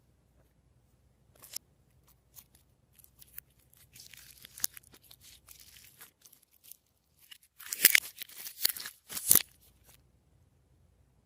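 Glossy slime being worked by hand: scattered sticky clicks and crackles, then a louder run of crackling pops lasting about two seconds in the second half.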